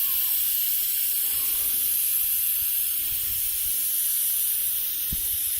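A steady high-pitched hiss, with a couple of faint low knocks near the end.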